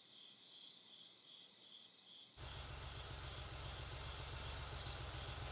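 Crickets chirping in an even, repeating rhythm. About two seconds in, a low steady hum joins them.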